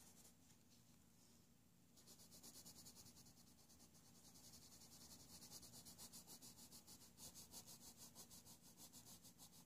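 Faint scratching of a Faber-Castell Polychromo coloured pencil stroking back and forth on paper, in quick even strokes that start about two seconds in.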